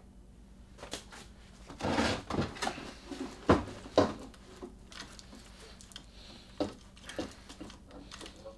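Wooden knocks and scrapes of a plywood enclosure and PVC cannon barrels being handled on a wooden workbench, with a few sharp knocks about two, three and a half and four seconds in.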